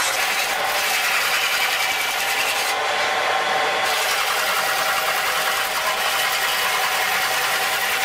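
Hand chisel cutting into a large wooden log spinning on a wood lathe: a steady rasping scrape of the blade shaving the wood, with the lathe running underneath.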